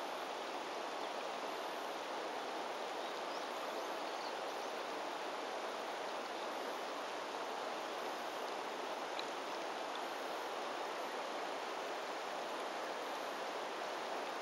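Steady rush of a river flowing over a stony bed, an even noise that does not change.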